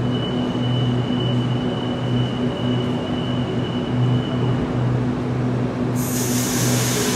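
Double-deck electric suburban train standing at a platform, its equipment giving a steady pulsing hum with a thin high whine that stops a little before five seconds in. About six seconds in, a sudden loud hiss of air starts and keeps going.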